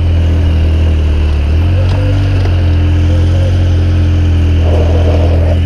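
The engine of a Yamaha towing vehicle runs steadily while pulling a KTM 450 quad in a bump-start attempt, its pitch stepping up about one and a half seconds in. The quad itself is not firing.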